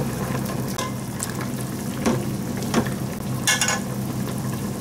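Spicy braising liquid of a sturgeon-head jorim simmering in a large metal pot while a metal ladle stirs through it and scoops up sauce, clinking against the pot several times, over a steady low hum.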